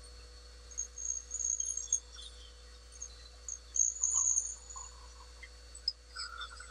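Small wood lathe running with a steady hum while a hand-held turning tool cuts the spinning pen blank in short, high-pitched scraping bursts: about a second in, again around four seconds (the loudest), and near the end.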